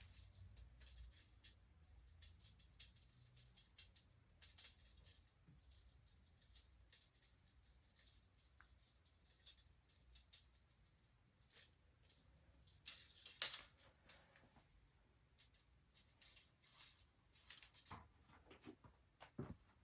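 Soft, irregular rustling and rattling: a run of light scratchy, crinkly sounds, loudest for a moment about two-thirds of the way through.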